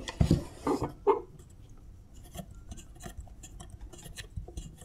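Handling clatter of tools on a bench: a few clunks in the first second as a metal gear puller is put down, then faint light clicks and scrapes as the fan wheel is worked loose along the spindle shaft.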